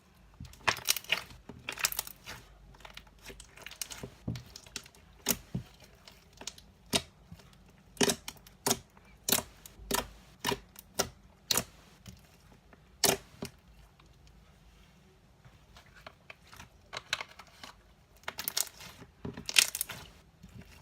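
Homemade slime being squished and pulled in the hands, giving irregular sharp pops and clicks, with a quieter stretch about two-thirds through. The slime is getting sticky from warm hands.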